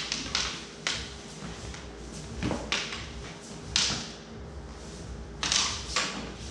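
Fencing swords and daggers clashing and scraping during sparring: a run of sharp, irregular clinks and short scrapes, about eight in all.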